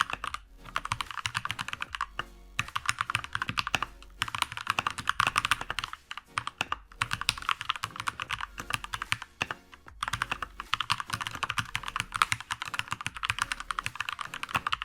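Typing on a Keychron K2 V2 mechanical keyboard with Keychron brown switches: fast, continuous keystroke clacks, with brief pauses about two and a half, six and ten seconds in.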